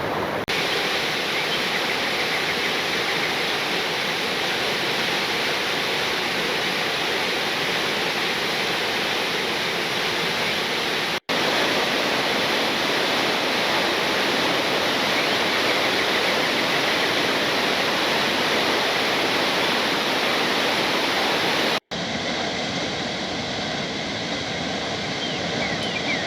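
Waterfall: a steady rush of falling water, broken twice by a split-second gap where clips are joined. After the second gap it sounds thinner.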